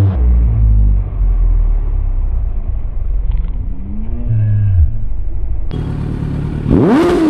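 Superbike's inline-four engine idling with a deep, steady rumble through a loud exhaust. It is blipped lightly about two-thirds of the way in, then revved sharply near the end, the pitch shooting up and dropping straight back.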